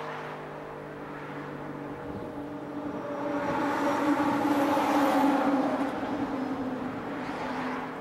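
Darley STH-10 outdoor warning siren sounding its steady alert tone, several pitches held level. A rushing noise swells to its loudest about four to five seconds in, then fades again.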